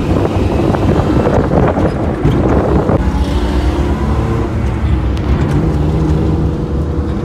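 Steady road noise of a moving car, engine and tyres rumbling, heard from inside the car.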